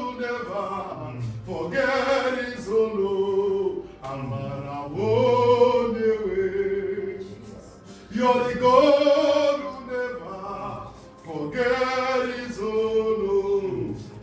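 A gospel praise chorus sung by voices, a man's voice strongest, in long held phrases of a few seconds each that rise and fall.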